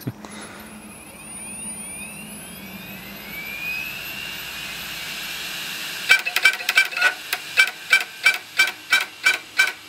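Opened IBM 25 GB hard drive from 1999 spinning up with a rising whine; about six seconds in, its head-actuator voice coil starts barking over and over, about three barks a second. The drive has been knocked about and flooded, and this voice-coil 'bark of death' goes beyond the usual click of death, for a cause the owner cannot name.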